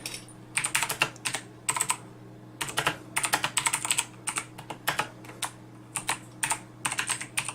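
Typing on a Razer BlackWidow Stealth Edition mechanical keyboard: slow, uneven keystrokes in short runs with brief pauses between them. A steady low hum sits underneath.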